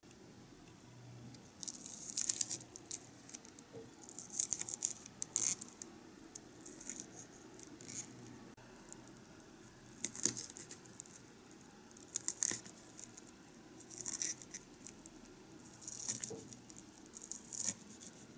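A tiny knife chopping a cabbage leaf on a small wooden cutting board. Crisp taps come in quick runs every second or two.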